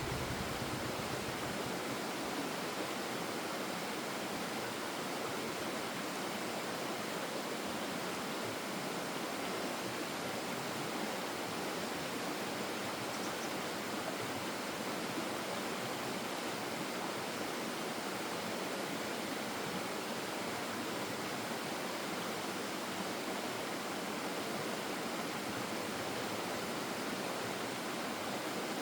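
Stream water rushing over rocks: a steady, even hiss with little low rumble.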